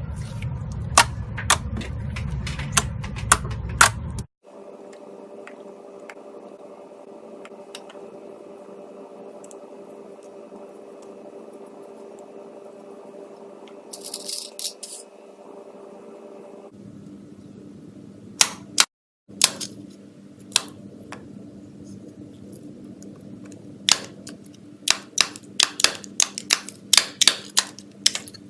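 Slime being squeezed and poked by hand, giving irregular sharp clicking pops over a steady hum, broken by sudden cuts between clips.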